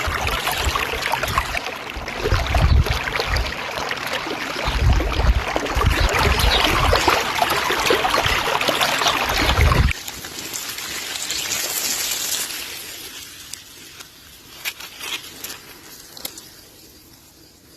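Running water with wind gusts buffeting the microphone, cutting off abruptly about halfway through to a quieter outdoor hiss that fades, with a few faint ticks near the end.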